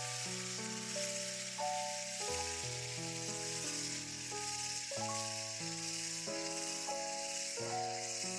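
Electric hand mixer whisks beating egg whites to a foam in a glass bowl: a steady hiss. It is heard over background music with chords changing every half second or so.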